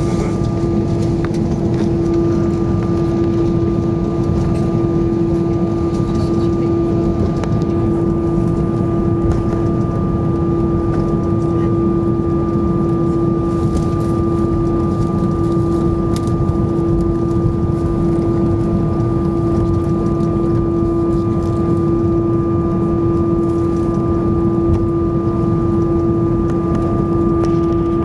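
Steady cabin noise inside an Airbus A320 taxiing after landing: a low rumble from the engines at idle and the airflow, with a constant hum, unchanging throughout.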